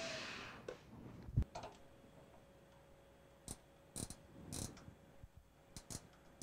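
Faint, scattered clicks of a digital micrometer being closed on a turned part, its thimble ratchet clicking as it seats, with a knock about a second and a half in. The running noise of the CNC lathe dies away at the start.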